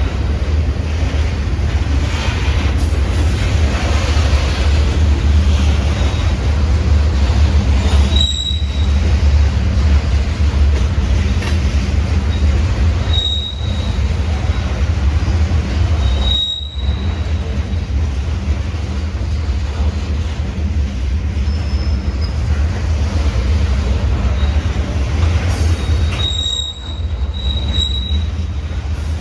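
Freight train rolling past close by, a steady low rumble of wheels on rail, broken by short high-pitched wheel squeals about four times.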